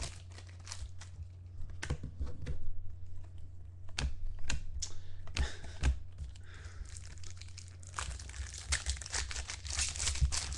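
Foil trading-card packs crinkling and tearing as they are opened, with cards clicking and tapping as they are handled. A steady low hum runs underneath.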